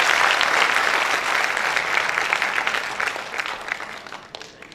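Audience applauding, the clapping thinning and fading out over the last second or two.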